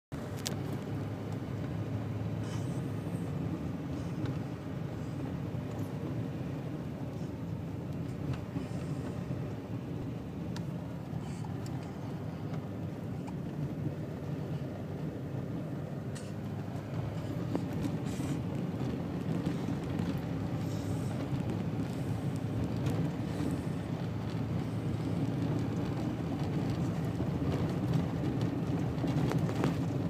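Steady low road rumble inside a pickup truck's cab at highway speed: engine and tyres running on the interstate.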